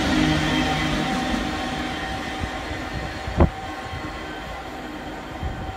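GBRf Class 66 diesel locomotive 66752, with its two-stroke EMD V12 engine, running past at the tail of the train and fading as it pulls away, with wheels rolling on the rails. A single sharp knock about three and a half seconds in.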